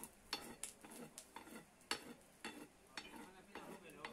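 Hand hammer striking a red-hot iron rod on a small anvil block: a series of sharp metallic blows, about two a second and unevenly spaced, each with a short ring.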